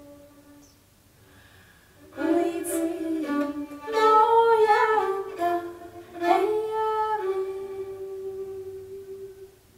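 A solo female voice singing a slow melody without accompaniment, starting about two seconds in and ending on a long held note that fades away.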